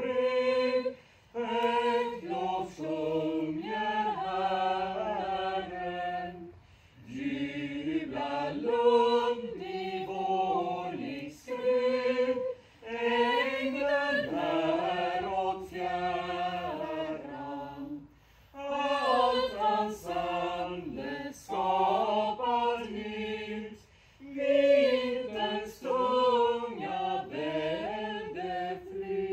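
Church choir singing unaccompanied, in Swedish, in sung phrases broken by short breath pauses every few seconds.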